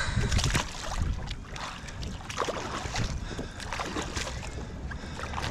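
Water splashing and slapping irregularly beside a kayak as a fish is released by hand, with a steady low wind rumble on the microphone.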